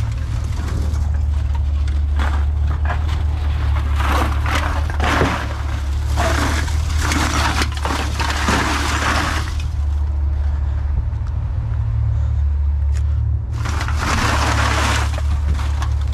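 Sacks of empty aluminum cans being handled, the cans rattling and crunching in two long bursts with a pause between, over a steady low hum.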